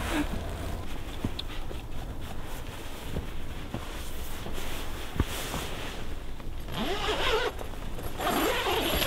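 Footsteps in deep snow with a few soft thuds, then two longer rasping scrapes, about seven and eight and a half seconds in.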